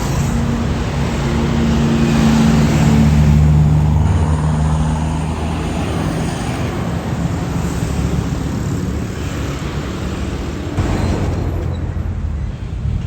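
Tour bus engine running as the bus passes, with road traffic noise. A low engine drone is strongest in the first few seconds and fades after about six seconds, leaving the hiss of traffic.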